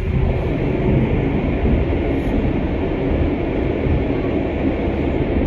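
Steady low rumble of a GTX-A express train running at speed, heard from inside the carriage. It comes in abruptly at the start and then holds steady.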